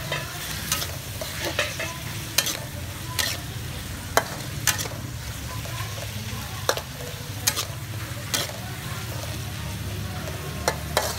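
Metal spatula clinking and scraping against a metal wok as beef and carrot slices are stir-fried, in irregular knocks about once or twice a second. A light frying sizzle and a steady low hum run underneath.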